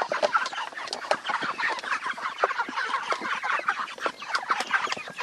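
A flock of Cornish cross meat chickens clucking and peeping busily over their mash, with many quick overlapping calls and sharp clicks of pecking at the feed.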